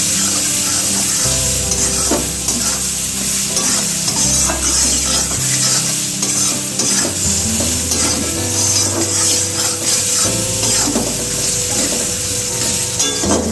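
Chopped onion and tomato frying in mustard oil in a pan, with a steady sizzle, stirred with a spatula that scrapes the pan every few seconds.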